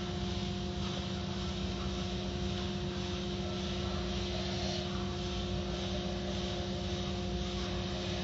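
Automatic car wash machinery running, a steady drone with a constant low hum and an even rushing noise over it.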